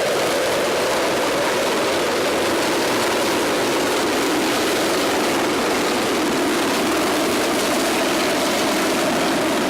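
Helicopter running nearby: a loud, steady engine and rotor noise whose pitch sinks slightly about halfway through and rises again.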